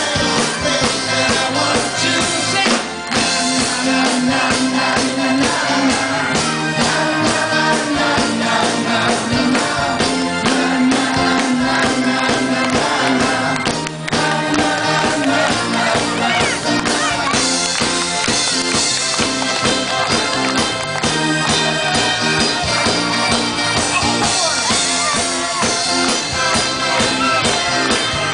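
Live rock band playing loudly: electric guitars, drum kit and keyboard, with two brief drops in the sound about three seconds in and near the middle.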